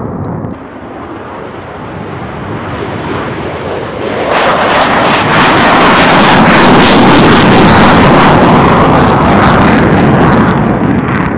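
F-35 fighter jet's F135 turbofan engine, loud jet noise as the jet takes off and flies low past. The noise steps up suddenly louder and brighter about four seconds in and eases slightly near the end.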